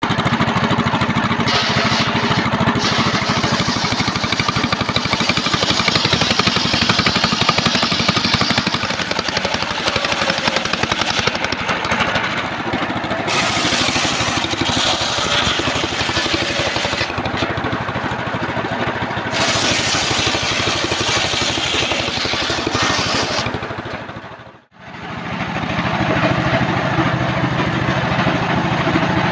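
Homemade table circular saw ripping old trembesi (rain tree) logs into slabs, a continuous loud cutting noise over the running drive. It cuts off abruptly about three-quarters of the way through and gives way to a two-stroke chainsaw running at a lower, steadier pitch.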